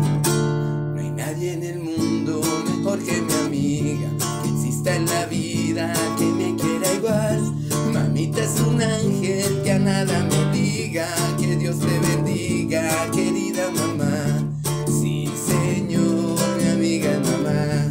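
Acoustic guitar strummed in a steady rhythm: an instrumental passage of the song with no singing.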